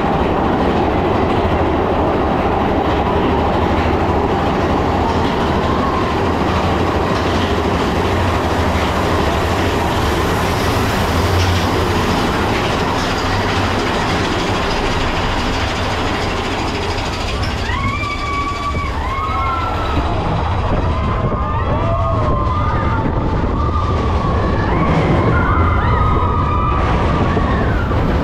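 Mine-train roller coaster running along its track with a steady rumble and rattle. From a little past halfway, riders yell and whoop in rising-and-falling cries over the noise.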